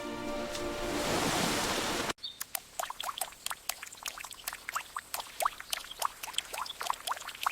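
Music swelling into a rising whoosh for about two seconds, then an abrupt cut to water dripping: irregular drops falling into water, several a second, each a short pitched plip.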